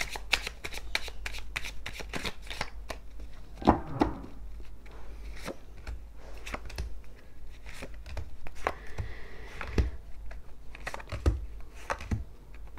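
Tarot cards shuffled by hand in a quick run of crisp card snaps. A louder knock comes about four seconds in, then cards are dealt and laid down one at a time with light slaps and slides.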